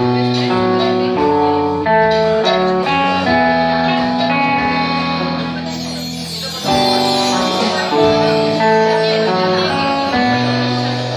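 Live band playing with guitars, bass guitar and electronic drums, a melody moving in held, stepped notes over a steady bass line; the playing eases briefly about two-thirds of the way through, then comes back in full.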